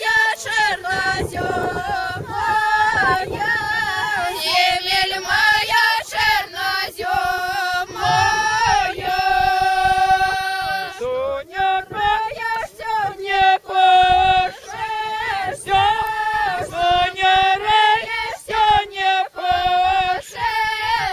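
Folk ensemble of girls and women singing a traditional song together, with long held notes between short breaths.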